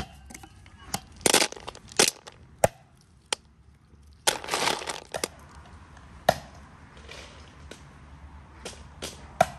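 Fresh hazelnuts being husked by hand: crackling and rustling of the green leafy husks as they are torn away, with several sharp clicks of nuts knocking together or dropping into a bowl.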